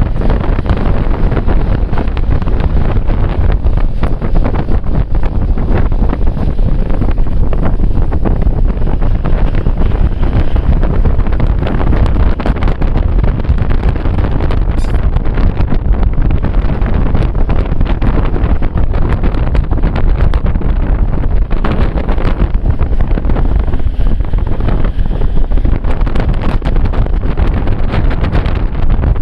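Strong wind buffeting the microphone: a loud, steady low rumble with frequent crackles.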